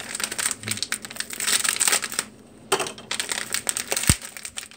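Metallized anti-static bag crinkling and crackling as it is handled and opened by hand, with a brief pause about halfway. A single low thump comes near the end.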